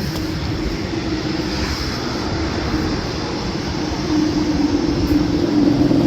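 Street traffic: a steady engine hum under a broad rush of noise, growing louder over the last couple of seconds as a vehicle comes closer.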